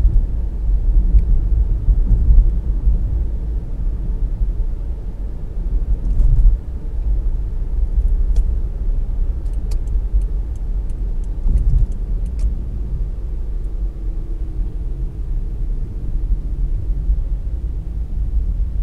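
Car driving at city speed, a steady low rumble of road and engine noise that swells now and then. A run of faint light ticks, about three a second, comes through for a few seconds near the middle.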